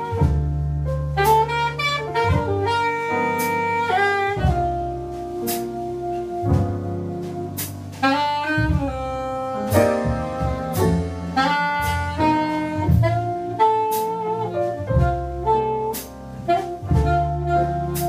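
Live jazz ensemble playing in a rehearsal room: a saxophone-like horn carries a moving melody over low bass notes, with frequent sharp drum and cymbal hits.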